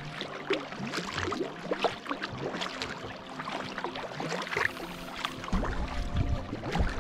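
Kayak paddling on calm water: the paddle blades dipping, splashing and dripping with each stroke, in an irregular patter of small splashes.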